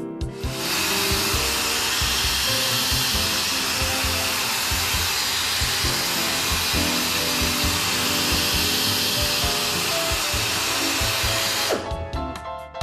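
Slow-speed pneumatic air drill running a carbide cutter through a tire puncture to ream it out. The steady noise starts about half a second in and stops just before the end.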